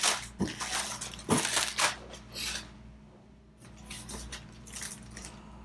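Plastic packaging wrap crinkling and crumpling in the hands in several loud bursts over the first two and a half seconds. Quieter rustling follows as hands rummage among Blu-ray cases in a cardboard box.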